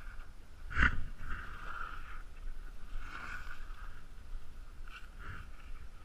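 Wind rumbling on a helmet-mounted camera's microphone, with a single knock about a second in and three short swishes of movement in the snow.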